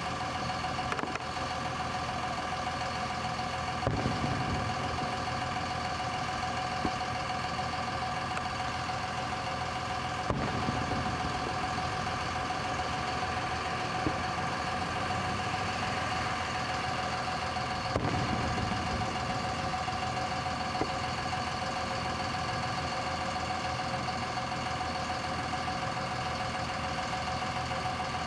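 Fireworks bursting in the sky, heard as three booms several seconds apart with a few fainter pops between, over a steady humming drone.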